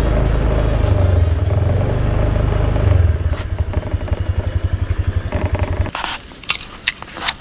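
Honda motor scooter's engine running while riding. About three seconds in it turns to a rhythmic pulsing, and near six seconds it stops abruptly. A few sharp clicks and knocks follow.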